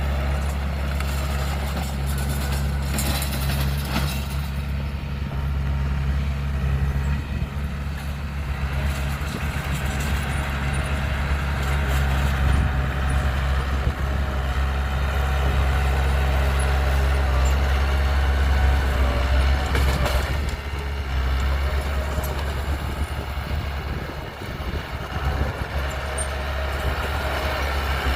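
Heavy machinery's diesel engine running steadily with a deep drone, and a few brief knocks scattered through it.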